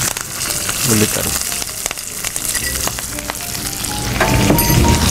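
Chopped onions frying in hot oil with tempering spices in a clay pot: a steady sizzle thick with small crackles, growing louder about four seconds in.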